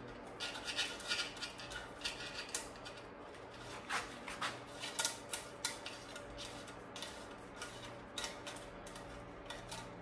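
Irregular small clicks, taps and scrapes of a steel bicycle cable and its housing being worked by hand through a frame's internal routing ports, coming thick and fast in the first half and more sparsely later.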